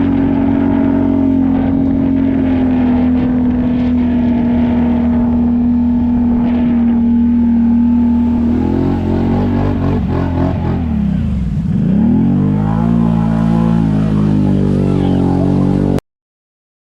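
Can-Am ATV engine running at a steady speed for several seconds, then throttling down and revving back up. The sound cuts out abruptly near the end.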